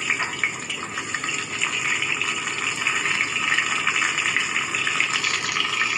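Brinjal slices coated in besan and spices sizzling steadily as they shallow-fry in hot oil in a steel kadai, a continuous hiss with fine crackling.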